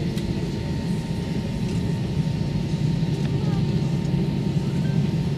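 Steady cabin noise inside an Airbus A321 taxiing on the ground: engines at idle and cabin air give a low, even hum with a few faint steady tones above it.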